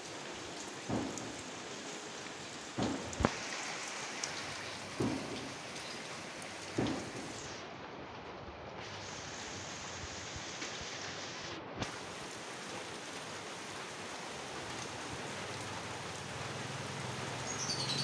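Steady rain falling on wet gravel, with a handful of short, sharper taps scattered through it.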